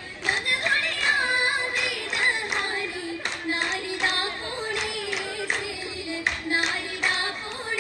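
Oppana performance: girls singing a Mappila song in unison, punctuated by sharp group hand claps from the dancers in an uneven rhythm of roughly one to two claps a second.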